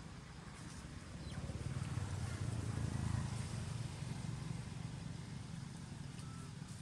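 Low engine rumble of a passing motor vehicle, building about a second in, loudest near three seconds, then easing off.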